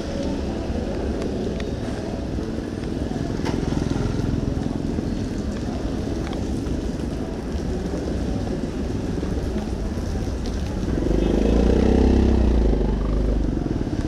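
Street traffic noise with a vehicle engine passing close about eleven seconds in; this is the loudest moment, and it fades away about two seconds later.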